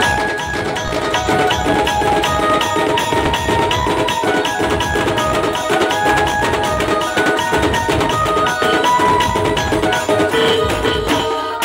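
Chhattisgarhi dhumal band playing a fast dance tune: rapid, even drumbeats under a melody line.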